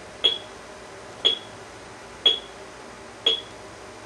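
Cheap Talk 8 communicator sounding a short, high electronic beep about once a second, four times in a steady rhythm.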